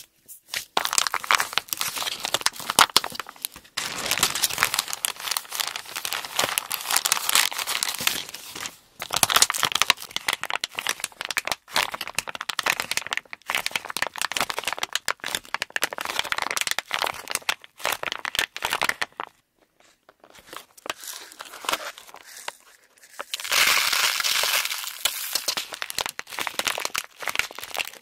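Thin clear plastic zip bag crinkling and crackling as fingers squeeze and knead a soft squishy toy inside it. The crinkling comes in dense runs with brief pauses, the longest about two-thirds of the way through.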